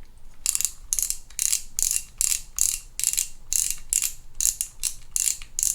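Shimano Stradic 4000FE spinning reel being cranked back and forth by its handle, its gears and rotor giving a run of short rasping whirs about two and a half times a second. The rotor turns backward freely because the anti-reverse clutch is not holding.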